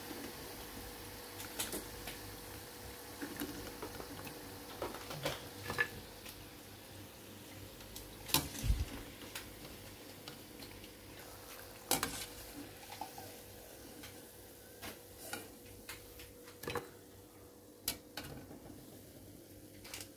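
Urad dal vadai frying in hot oil with a soft, steady sizzle over a faint hum, and a perforated steel skimmer clinking against the steel kadai now and then as the fried vadai are strained out.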